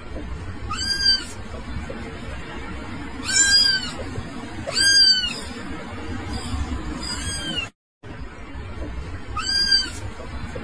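A kitten meowing: five short, high meows, each rising and then falling in pitch, a second or two apart, over a steady low background. The sound cuts out completely for a moment about three quarters through.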